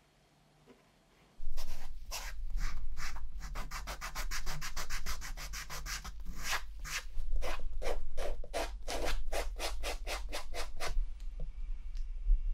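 A sanding pad rubbed briskly back and forth over the smooth leather toe of a trainer, at about four strokes a second, to prepare the leather for refinishing. The rubbing starts about a second and a half in and stops about a second and a half before the end.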